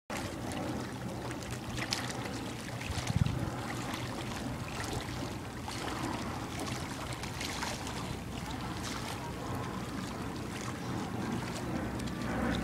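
Wind rushing over the microphone with small waves lapping at the shoreline, and a stronger gust about three seconds in.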